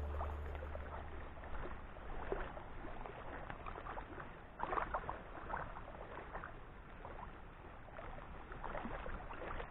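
Choppy water lapping and splashing in short, irregular sloshes, whipped up by strong wind.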